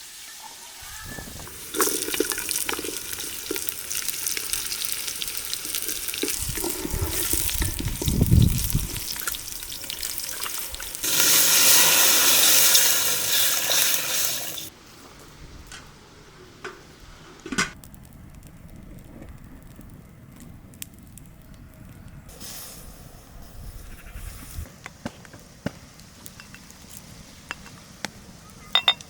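Water pouring and splashing for about thirteen seconds, loudest just before it stops, then a quiet stretch with a few scattered clicks and knocks.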